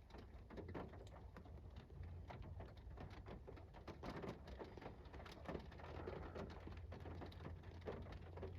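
Faint rain with scattered, irregular raindrops tapping on a window, over a low steady hum.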